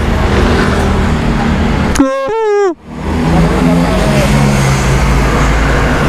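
Yamaha RX-King two-stroke motorcycle engine running, a steady loud rumble with a rushing noise over it. A short voice call breaks in about two seconds in, and the sound drops out for an instant just after.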